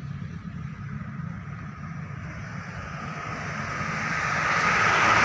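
Road traffic: a steady low rumble, with a passing vehicle growing louder from about halfway through and loudest at the end.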